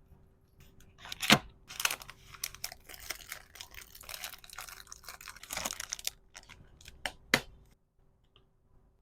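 Plastic packaging being handled: crinkling and rustling with several sharp clicks, the loudest about a second in and another near the end, before it stops.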